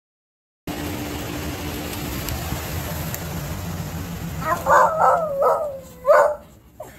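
West Highland white terrier giving a quick run of four high barks about five seconds in, announcing his arrival. The barks come over a steady hum of indoor background noise.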